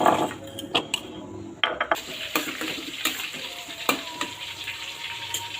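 Dishes and utensils clinking, then a tap running steadily from about two seconds in, with a few more clinks over the running water.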